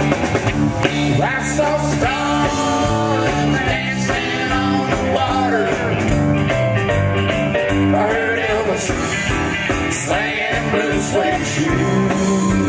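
Country rock band playing live: electric guitar, bass and drum kit with cymbals, with a man singing the lead line over them.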